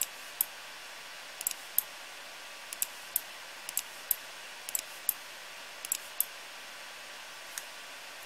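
Computer mouse button clicking as it is pressed and released to drag-rotate a 3D map. There are six press-and-release pairs about a third of a second apart, then one lone click near the end, over a steady hiss.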